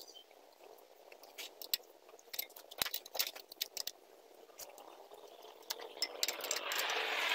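Scattered light metal clicks and scrapes of a combination wrench and an Allen key working the socket screws and nuts that bolt a steel rear sprocket to a motorcycle wheel hub, as the bolts are tightened. A hiss rises near the end.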